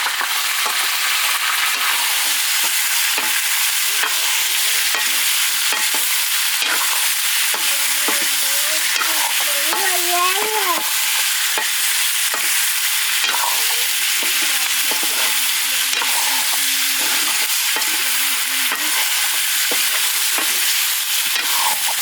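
Chicken pieces frying in hot oil in a karahi, a steady loud sizzle, with the meat being stirred and turned in the pan.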